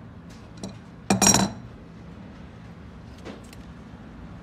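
Metal faucet parts clinking: a short, rattling clink about a second in as the metal spout and its flange ring are fitted into the brass valve body, with a couple of faint ticks later.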